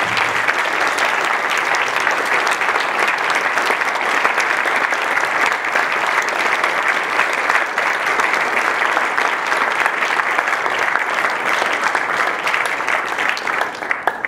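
An audience applauding: a long, steady round of many hands clapping that cuts off abruptly at the end.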